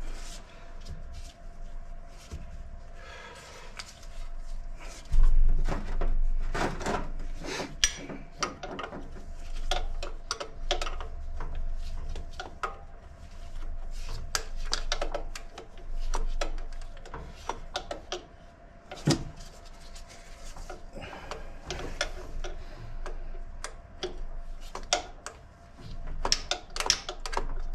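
Hand tools working on metal engine parts to undo a fuel line fitting on a Toyota 4A-GE engine: scattered clicks, knocks and rubbing, with heavier thuds about five to seven seconds in and a sharp knock about nineteen seconds in.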